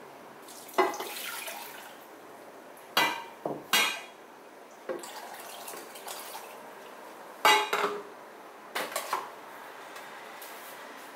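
Kitchenware being handled: a series of sharp clinks and knocks as a glass, a plastic bottle and pots are picked up and set down, with water poured into a pot. The knocks come in small clusters, the loudest about three and a half seconds in and again near seven and a half seconds.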